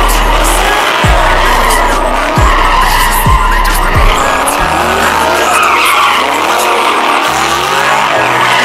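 Car tyres screeching as a car spins donuts in its own tyre smoke. Music with a deep, booming bass line plays over it, its bass notes changing in steps, with several quick falling bass drops in the first half.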